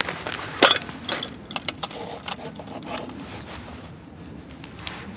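Knife cutting a lemon on a camp plate: sharp clicks and scrapes of the blade against the plate, thickest in the first couple of seconds, then fainter.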